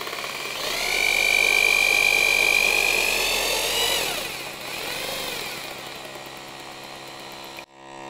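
Electric drill boring through plasterboard through a Kärcher DDC 50 suction dust catcher. The drill's whine climbs in the first second and holds high and steady. About four seconds in it falls in pitch, and quieter running continues until it cuts off suddenly near the end.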